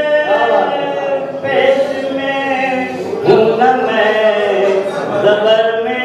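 An elderly man sings an Urdu ghazal into a microphone with no accompaniment, holding long, gliding notes in the melodic tarannum style of recitation.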